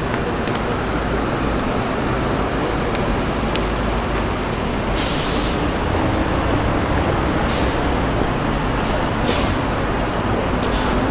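Steady rumble of heavy city traffic or passing transit vehicles, with a few short bursts of hiss in the second half.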